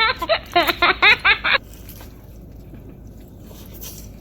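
A burst of high-pitched laughter in quick repeated pulses. It stops about a second and a half in, leaving only a low steady background.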